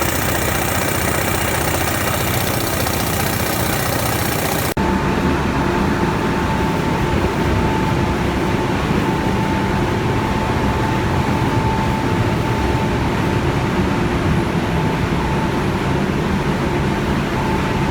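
Steady, loud running noise of machinery or air tools. An abrupt change about five seconds in brings a steady high-pitched hum on top of it.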